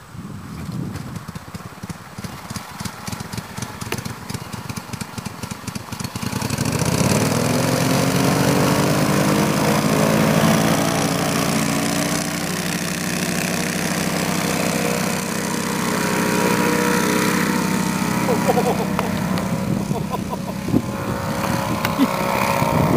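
Briggs & Stratton 16 HP four-stroke engine and propeller of a paramotor trike, idling unevenly, then throttled up about six seconds in and held at full power for the takeoff run and climb.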